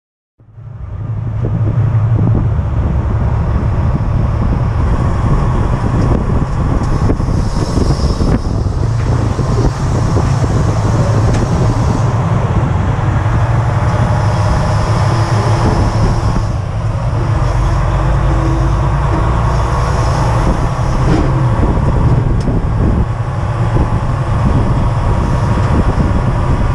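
Loud, steady rumbling road and wind noise from a semi-truck's trailer tyres and running gear, heard close up from a camera mounted under the trailer. It comes in about half a second in.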